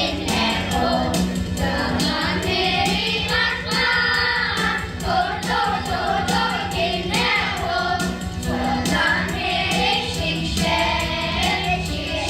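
A class of young children singing a Mongolian song together in unison over a backing track with a steady beat.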